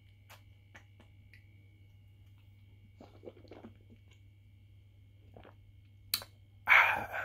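Faint mouth sounds of a person swallowing and tasting a sip of wine: a few soft clicks and small lip noises. Near the end a sharp click, then a short, loud rush of breath.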